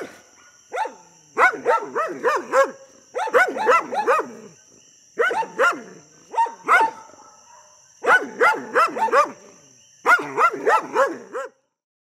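Dogs barking in quick volleys of several barks each, with short pauses between volleys, over a steady high-pitched tone. It all cuts off shortly before the end.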